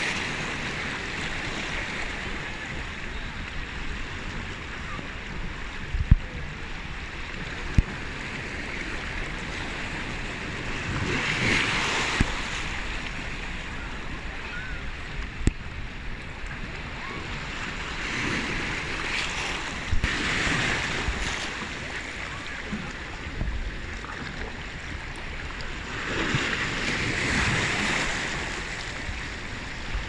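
Small sea waves washing in over shallow rocks at the water's edge, a steady wash that swells with each incoming wave about every seven or eight seconds, with a few sharp clicks now and then.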